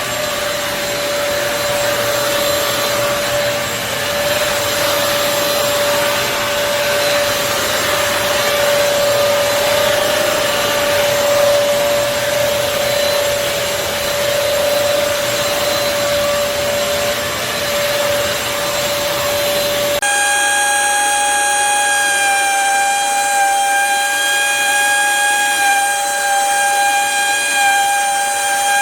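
BISSELL CrossWave wet-dry floor cleaner running: a steady motor whine with a rushing suction sound. About two-thirds of the way through, the sound changes suddenly to a cleaner, higher-pitched whine with much less rush.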